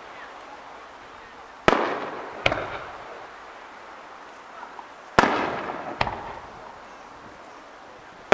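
Aerial fireworks going off: two pairs of sharp bangs, each trailing off in a rolling echo, with the second bang of each pair the weaker. One more bang comes right at the end.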